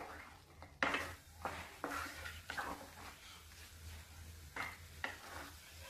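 Wooden spatula stirring and scraping a thick onion-tomato masala around a coated nonstick frying pan: about six short, soft scrapes, unevenly spaced.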